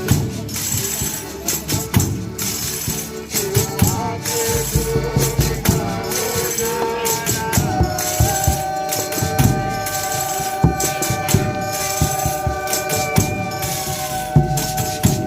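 Folia de Reis music: tambourines jingling and drum strokes in a steady rhythm. About halfway through, long held notes come in over them.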